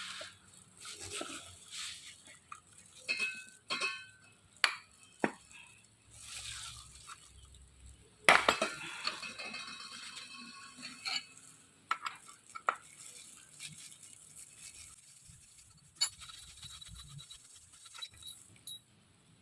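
Metal tools and parts clinking and tapping while a car engine's drive-belt tensioner pulley is unbolted with a T50 Torx L-key. The clinks are irregular and some ring briefly; the loudest is a single clank about eight seconds in.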